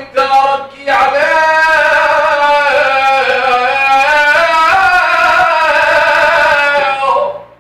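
A man singing 'ataba, the Levantine folk vocal form, solo and unaccompanied: a couple of short phrases, then one long ornamented line held for about six seconds that steps up and down in pitch and fades out near the end.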